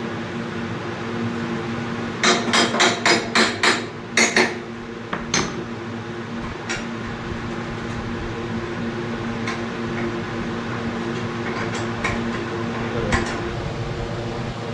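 Steady machine hum from an IFB washing machine. About two seconds in there is a quick run of about six sharp knocks, roughly four a second, then a few more single knocks.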